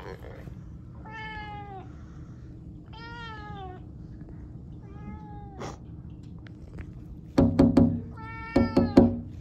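Young tabby cat meowing four times, each call dropping in pitch at its end. About seven seconds in comes a cluster of loud sharp knocks, the loudest sounds, with a few more during the last meow.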